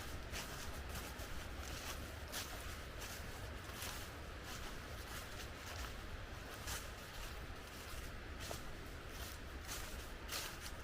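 Footsteps of a hiker on a trail: scattered, irregular crunches over a steady low rumble.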